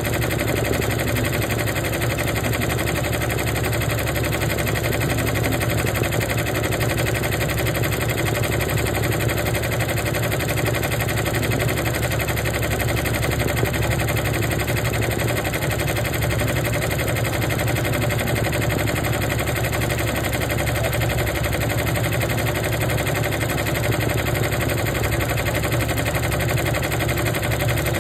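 Embroidery machine stitching a design, its needle head running at a steady rapid clatter of needle strokes.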